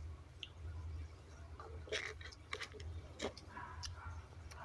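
Someone chewing a hamburger, with soft wet mouth clicks, a few of them louder, over a low steady hum.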